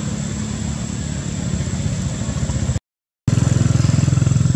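A small engine running steadily with a low hum. It cuts to dead silence for about half a second near the three-second mark, then comes back louder.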